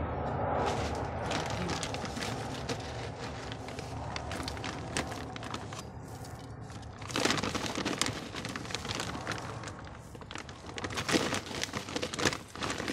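Volcanic gravel scooped by hand from a plastic bag and dropped onto potting soil: the grains rattle and the bag crinkles in irregular clusters of clicks and crackles. It is loudest about seven seconds in and again near the end.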